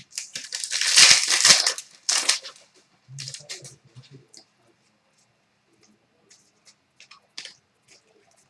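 A trading card pack wrapper being torn open, a loud ripping for about two seconds, then crinkling of the wrapper a second later, followed by a few faint clicks.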